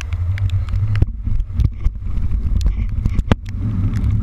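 Fishing boat under way through rough sea: a steady low rumble, with sharp ticks scattered through it, some of them hard.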